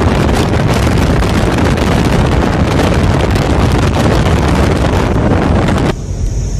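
Wind buffeting the microphone from a moving car: a loud, even rush of noise that drops away suddenly near the end.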